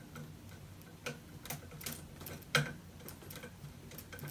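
Screwdriver driving a mounting screw into the back of a computer monitor: a scatter of light, irregular clicks and taps, the loudest about two and a half seconds in, over a faint steady hum.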